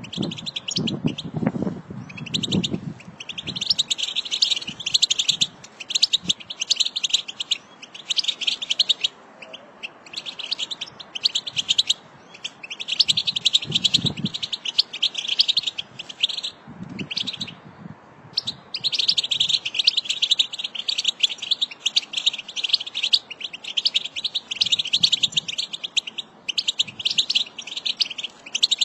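American goldfinch song: long rambling runs of rapid high twittering notes, in phrases of one to a few seconds separated by short breaks.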